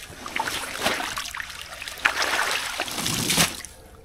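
Water splashing and trickling, with louder splashing in the second half.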